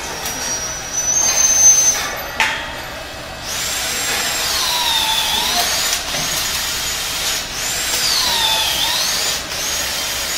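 Electric pallet truck's motors whining as it runs its forks under a loaded pallet box, lifts it and pulls away. The high whine dips in pitch and comes back up twice, with a single click about two and a half seconds in.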